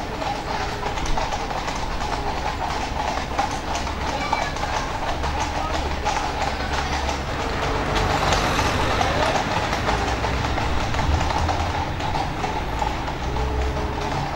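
Hooves of a four-horse team clip-clopping at a steady pace, with the wheels of the carriage they pull rumbling underneath.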